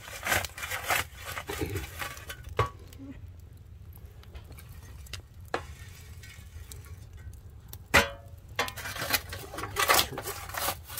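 Kitchen utensils and dishes clinking and scraping in irregular bursts, with sharp single knocks about two and a half and eight seconds in.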